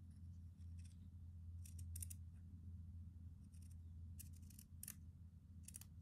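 Small embroidery scissors snipping through fabric: a series of short, quiet cuts, some in quick pairs, as a small leaf shape is cut out.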